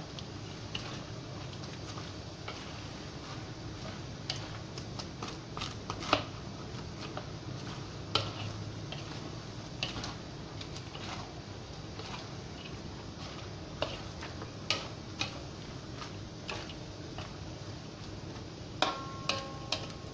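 Spatula scraping and clacking against a wok while stir-frying a large batch of instant noodles with vegetables: irregular clicks and scrapes over a steady hiss.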